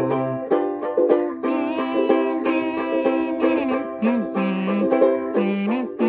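Harmonica played in a neck rack, holding and bending melody notes over steadily strummed ukulele chords.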